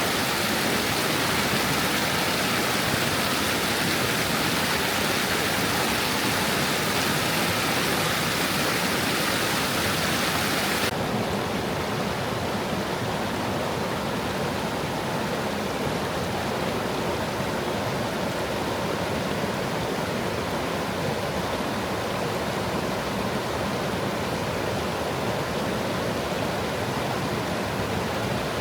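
Stream water running steadily over stones. About eleven seconds in, the bright upper hiss cuts off suddenly, leaving a duller, softer rush.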